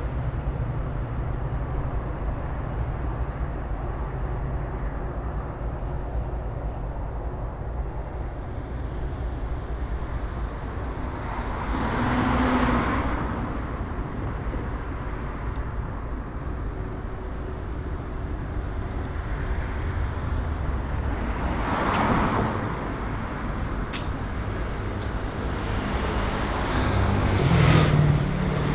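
Street traffic: a steady low rumble of road noise, with three vehicles passing by, each swelling and fading. One passes near the middle, one about three-quarters through, and the loudest near the end.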